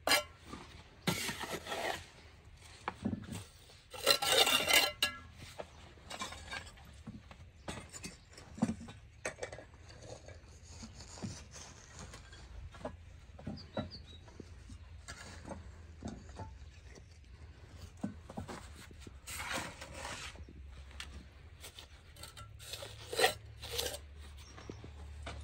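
Bricklayers' steel trowels scraping through mortar and clinking against bricks as they are laid, in irregular short strokes. The louder scrapes come about a second in, around four seconds in and near the end.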